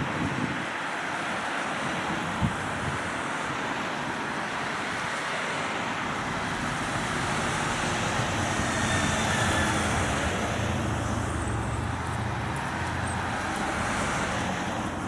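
Race-convoy vehicles (cars, a motorcycle and ambulance vans) driving past, a steady rush of tyre and engine noise. A single short knock comes a couple of seconds in, and an engine's low hum builds from about the middle as a van draws close.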